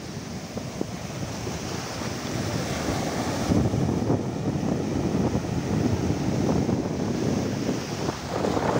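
Sea surf breaking and washing in foam over a sandy beach, a steady rushing wash, with wind rumbling on the phone's microphone.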